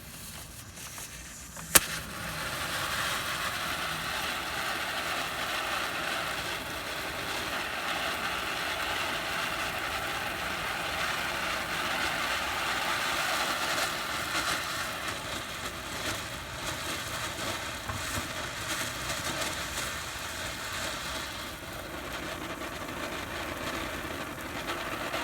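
A consumer firework fountain hissing steadily for over twenty seconds after a sharp pop about two seconds in.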